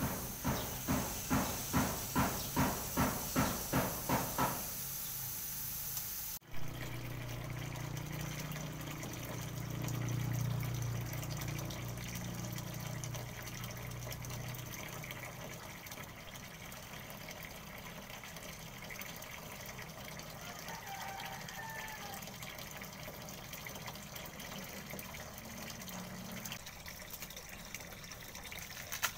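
Water running from a garden hose into a small cement pool as it fills, a steady splashing hiss. It opens with a quick run of about a dozen rhythmic strokes, two or three a second, that stop about four seconds in.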